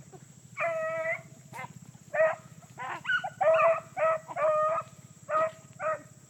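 Beagles baying on a rabbit chase: a run of about ten short, ringing bays, one of them drawn out longer about half a second in.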